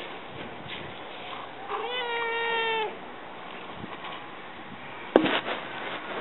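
A black-and-white domestic cat meows once, a single call about a second long, a couple of seconds in. About five seconds in comes a sharp knock, louder than the meow.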